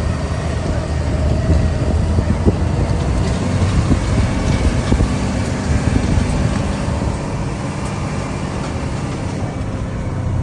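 Truck engine running with a steady low drone under a wash of road and mechanical noise, with a few faint clicks.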